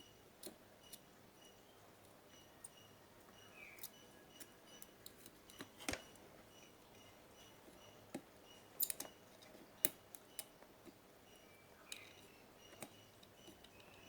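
Scattered light clicks and taps from small tools and parts being handled while an Astro home theater is taken apart, irregular and faint, with the sharpest clicks about six and ten seconds in. A few faint short chirps sound underneath.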